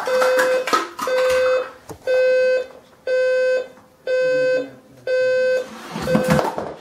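Electronic alarm clock beeping, one steady high beep about every second. About six seconds in, the last beep is cut short amid a clatter of knocks as a golf ball knocks a rock off its skewers onto the bean can that stops the alarm.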